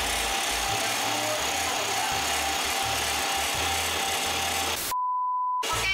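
Mito MX700 stand mixer running steadily, its wire whisk beating the mixture in the steel bowl until it turns white and fluffy, under background music. Near the end a short steady beep stands alone for under a second.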